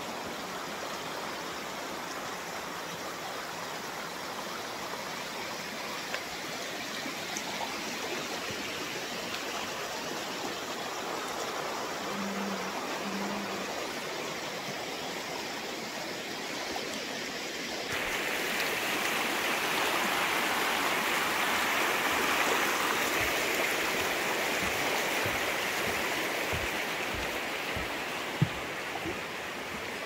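Forest stream running over rocks, a steady rushing of water. About 18 seconds in it steps up louder and brighter, with a few faint low knocks near the end.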